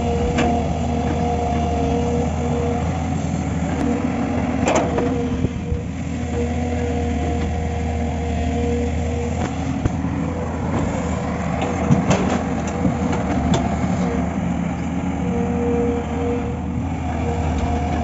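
JCB crawler excavator's diesel engine running steadily as it digs and dumps earth, with a few sharp knocks scattered through.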